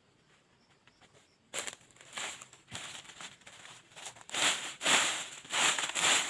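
Rustling in a string of short, irregular bursts. It starts about one and a half seconds in and is loudest near the end.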